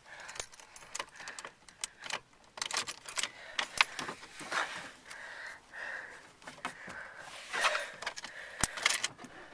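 Irregular jangling, clicking and scraping of small metal parts being fumbled with while trying to hotwire a car.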